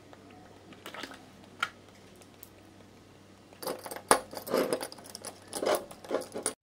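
Clicks and rattles of small hard objects being handled: a few scattered clicks at first, then a busy run of clicking and clattering from about three and a half seconds in that stops abruptly near the end.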